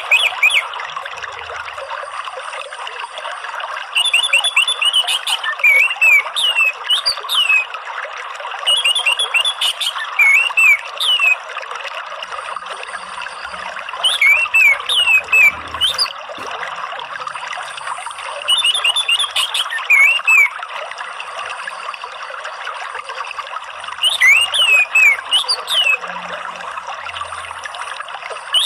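Orange-headed thrush song over the steady rush of flowing water. The thrush gives a short phrase of quick high notes and rising whistles, each about two seconds long, repeating roughly every five seconds.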